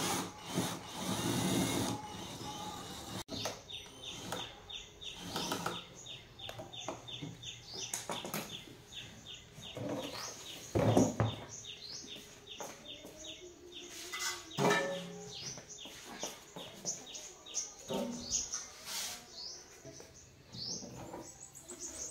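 A cordless drill-driver whirs for a second or two near the start, backing screws out of a knapsack sprayer's base. After that, small birds chirp rapidly over and over, with a few knocks and thuds from handling the sprayer and moving about, the loudest about halfway through.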